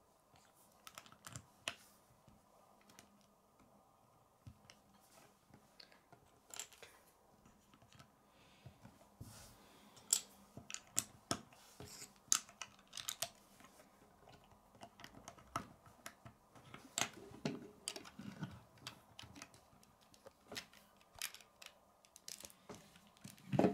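Plastic LEGO bricks being handled and pressed together: scattered small clicks and taps, coming more often in the second half.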